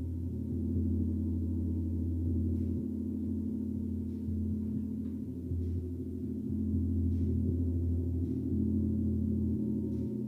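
Gong played continuously in a gong bath: a deep, sustained wash of overlapping low tones that swells and eases every second or two as it is struck softly again and again.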